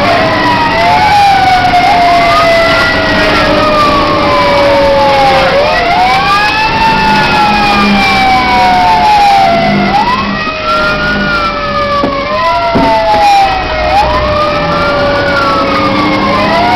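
Rescue truck's siren heard from inside its crew cab. Each wail rises quickly and then falls slowly, about every four to five seconds, over the steady rumble of the moving truck.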